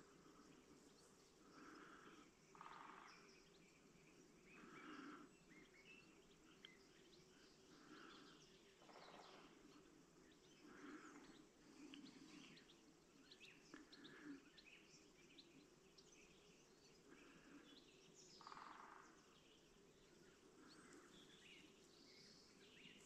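Near silence: faint open-country ambience with scattered small bird chirps and soft noises that recur every second or two.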